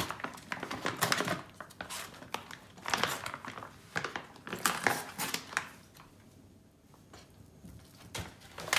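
Plastic vacuum-pack bags crinkling and tearing as they are cut open with scissors and peeled off raw slabs of pork ribs; the rustling dies down about six seconds in.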